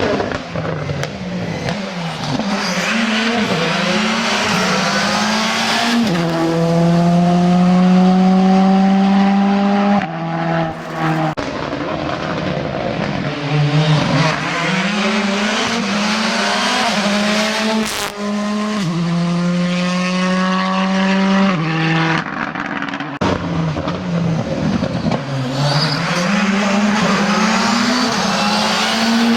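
Rally cars driven hard on a stage, engines revving up and down through gear changes and corners, with some tyre squeal.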